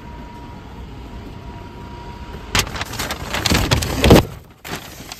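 Low steady outdoor background, then from about two and a half seconds in, loud rustling and knocking as a car door is opened and a paper shopping bag is handled and put inside, with a short lull and more rustling near the end.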